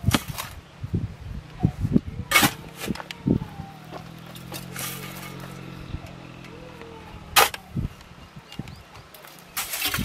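Steel shovel scraping into sand and gravel and tipping loads into a metal wheelbarrow: a series of sharp scrapes and gritty clanks, the loudest right at the start, about two and a half seconds in and about seven and a half seconds in. A faint steady low hum runs for a few seconds in the middle.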